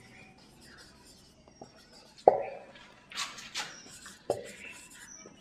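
Marker writing on a whiteboard: soft scratchy strokes, with two dull knocks about two and four seconds in.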